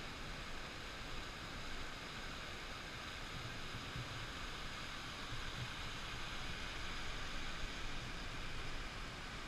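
Creek water rushing over a small cascade between boulders: a steady whitewater hiss, growing a little louder in the second half.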